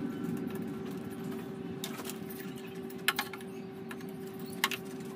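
A few sharp clicks and knocks, the loudest a pair about three seconds in and another near the end, over a steady low hum.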